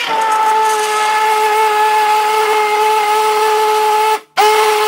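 Breville stick blender motor running steadily with a loud whine, submerged and puréeing chunky vegetable and lentil soup. It cuts out briefly about four seconds in and starts again.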